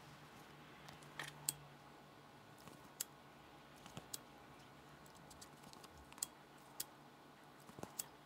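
Faint, scattered sharp clicks and light handling sounds as a disposable lighter is flicked and the embroidered vinyl-and-felt sign is handled to singe its edges.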